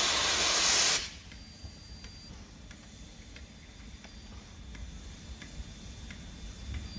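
LMS Black Five 4-6-0 steam locomotive 45231 rolling slowly past: a loud hiss of steam for about the first second, then a low rumble with light, regular clicks about every two-thirds of a second.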